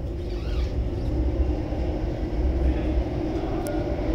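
Singapore MRT train running through a tunnel, heard from inside the car: a steady low rumble with a hum above it.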